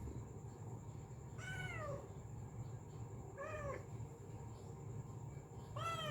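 Domestic cat meowing three times, each meow a short call that falls in pitch. The second meow is the briefest, and the third comes at the very end, over a steady low background hum.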